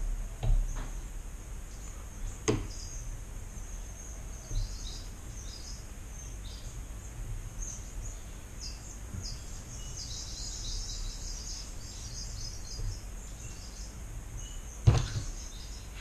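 Quiet handling sounds of tying thread being whip-finished by hand at the head of a fly in a vise: a few sharp clicks or taps, the loudest near the end, over a steady low hum and many faint high chirps.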